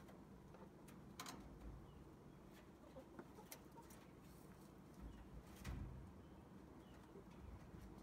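Near silence with a few faint, scattered clicks and rustles: rabbits shifting on a wire-mesh hutch floor and in loose straw.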